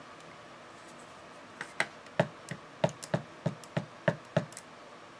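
A rubber stamp being tapped again and again onto a Jet Black StazOn ink pad to ink it: about a dozen sharp taps, a few a second, over about three seconds starting a second and a half in.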